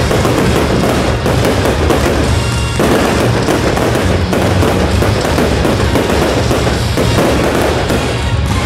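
Fireworks crackling and banging in quick succession, mixed with loud music from the display's sound system.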